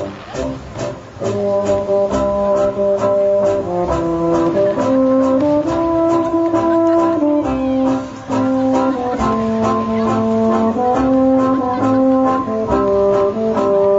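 Brass music playing slow, held chords that change every second or two, with frequent short sharp cracks through it.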